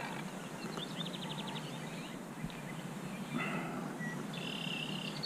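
Steady hum of distant automobile traffic, with birds trilling twice: a quick run of high notes about a second in, and another near the end.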